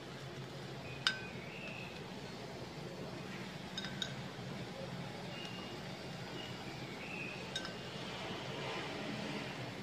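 Four sharp, ringing clinks: one about a second in, a quick pair near the middle, and one more later, over a steady low hum and hiss.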